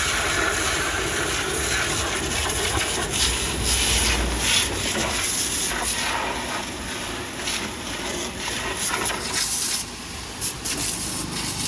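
Water spraying onto a JCB 3DX backhoe loader as it is washed: a steady hiss with irregular louder surges.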